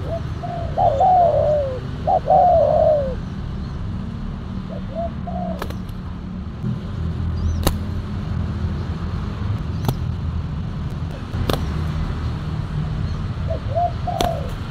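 Spotted doves cooing: two loud phrases of falling coos in the first three seconds, then softer coos around five seconds and again near the end. A steady low rumble runs underneath, and a few sharp clicks come at intervals.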